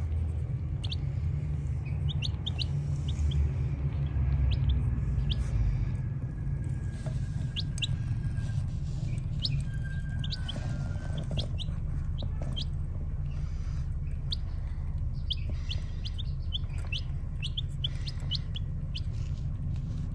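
Baby chicks peeping: short, high chirps coming singly and in quick runs, over a steady low rumble.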